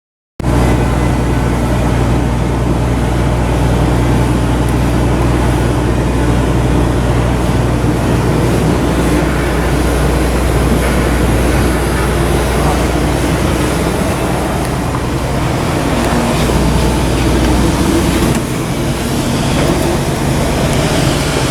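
Steady engine-like rumble with a low hum, changing slightly about eighteen seconds in.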